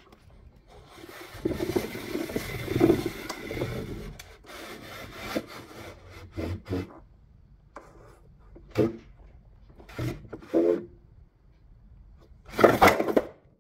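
Handling noise: a hand rubbing and brushing for a few seconds, then a string of short knocks, and a louder scraping rustle near the end.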